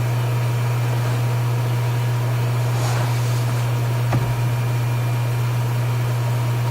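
A steady low hum with no change in level, and one faint short click about four seconds in.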